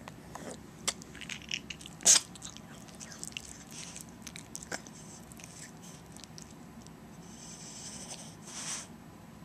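Maltese dog sleeping: a run of small clicks and mouth smacks, the sharpest about two seconds in, then one long hissing snore-breath near the end.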